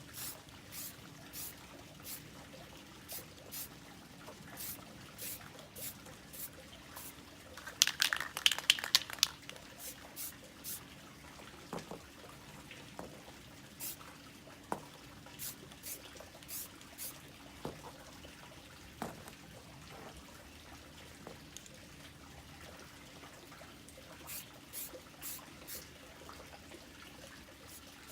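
Aerosol spray paint can handled and shaken: light scattered clicks, then a burst of loud rapid rattling from its mixing ball about eight seconds in.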